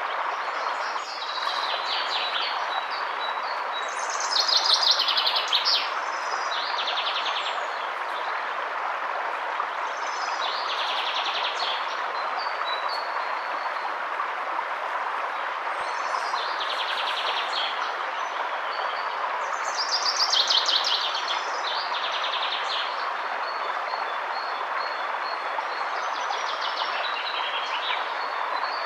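Steady rush of flowing river water, with songbirds singing short trilled phrases every few seconds over it.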